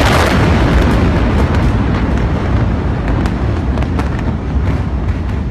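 Blast of a massive chemical-storage explosion: a loud, sustained low rumble with many scattered sharp cracks and pops, slowly easing.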